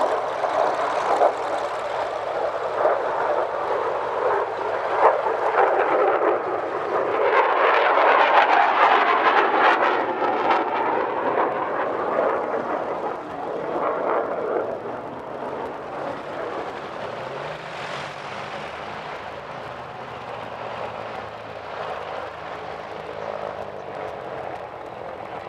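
Propeller warbird engines: a Vought F4U Corsair's radial engine at takeoff power, loud for the first dozen seconds and fading from about 14 seconds in. Then comes the quieter running of a P-38 Lightning's twin piston engines as it taxis, with a slowly wavering pitch.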